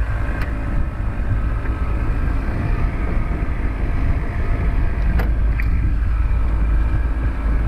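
Steady wind buffeting the action camera's microphone as a sailing dinghy moves under sail, with water rushing along the hull.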